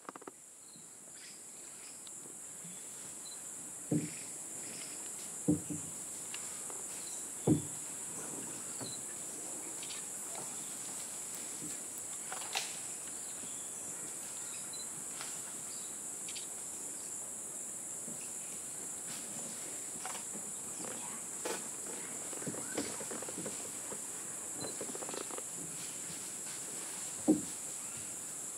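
Amazon rainforest insect chorus: a steady, high-pitched drone. It is broken by a handful of short, sharp knocks or snaps, the loudest moments, about four, five and a half, seven and a half and twelve seconds in and again near the end.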